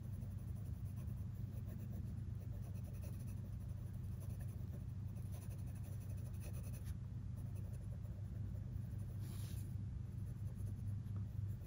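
Coloured pencil scratching faintly on paper in light, repeated colouring strokes, over a steady low hum.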